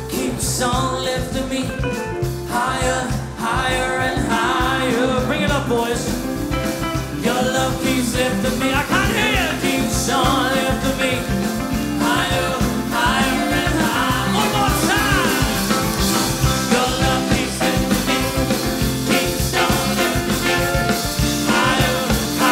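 A swing band playing an up-tempo number with a steady beat, and a voice singing the melody.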